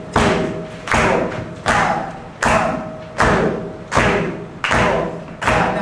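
Drums struck in a steady pulse, one heavy hit about every three-quarters of a second. Each hit has a deep thud and rings out briefly, and the playing gets busier near the end.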